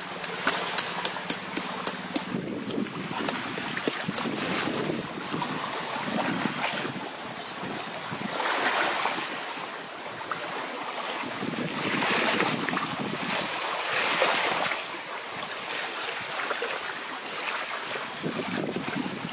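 Surf washing on the shore, with wind on the microphone. The noise swells three times in the second half, then eases back.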